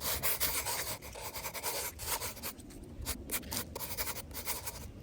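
Rubbing, rustling noise in quick, irregular strokes.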